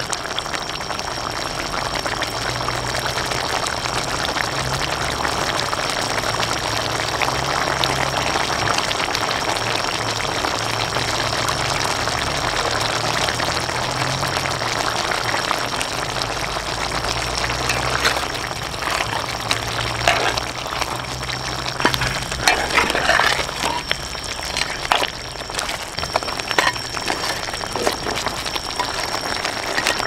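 Spare ribs simmering in a thick sauce in a black pan, bubbling and sizzling steadily. In the second half there are scattered clicks and taps.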